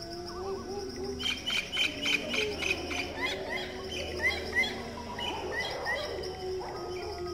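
Small birds chirping: a quick run of short, rising chirps starts about a second in and thins out near the end, over a faint steady hum.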